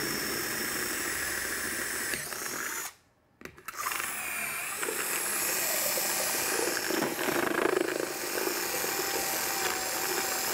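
Cordless drill with an 11 mm bit boring holes through the shell of a skydiving helmet. It stops briefly about three seconds in, then starts again and runs on.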